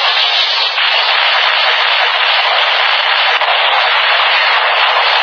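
Dark Tiga Spark Lens toy's small built-in speaker playing its form-change sound effect: a loud, steady, harsh rushing noise with no tune.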